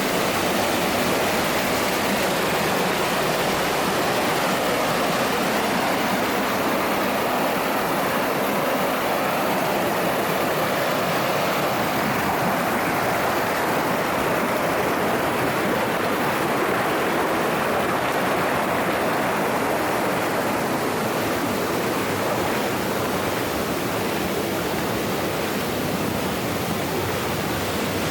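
Mountain stream rushing over rocks: a steady, unbroken wash of water.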